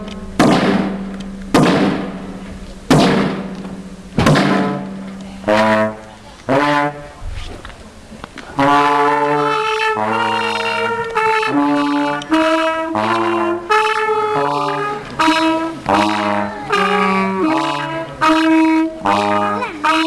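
Live brass music: four loud drum strikes about a second and a half apart, then from about five seconds in trombones play a melody over alternating low bass notes.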